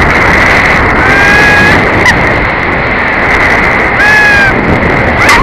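Steady loud rush of wind and the zipline trolley running along the steel cable, with a steady high whine from the pulleys. The rider gives two short high cries, about a second in and about four seconds in, and a short clatter comes near the end.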